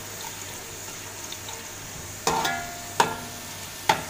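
Sliced onions and whole spices sizzling in hot oil in a metal pot as they fry toward golden, while a metal spoon stirs them. From about halfway in, the spoon strikes the pot three times, each knock ringing briefly.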